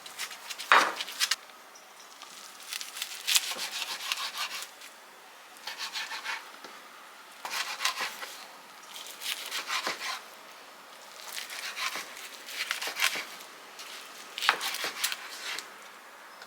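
Repeated rubbing, scraping strokes in short bursts, about seven of them, each lasting around a second, with the sharpest stroke about a second in.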